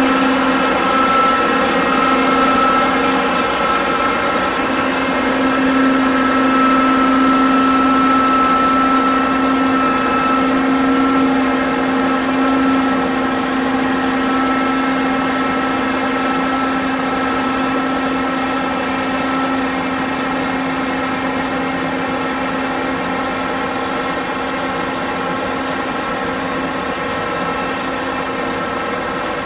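John Deere X9 1100 combine harvester's diesel engine running at a steady speed: a constant hum with a steady whining tone. It grows gradually a little quieter.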